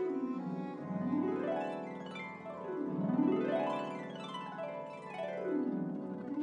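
Concert pedal harp playing sweeping glissandos, alternately up and down the strings, about one sweep every second or so, over a chamber orchestra's bowed strings.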